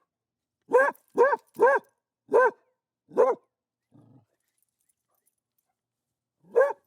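Dog barking: five short barks in quick succession, then a pause and one more bark near the end.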